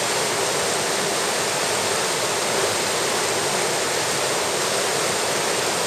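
Shallow stream running over stones: a steady rushing of water.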